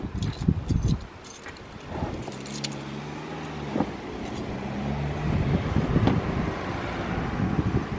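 A heavy rubber trunk mat being pushed and settled into a car's trunk by hand, making light scrapes, rustles and small clicks. Wind gusts on the microphone, and a low steady hum runs for about three seconds in the middle.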